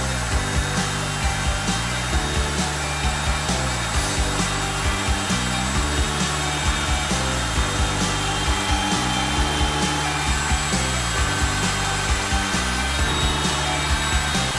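Background music with a steady beat and a stepping bass line, with a cordless drill boring a pilot hole into the wooden face frames of two joined cabinets.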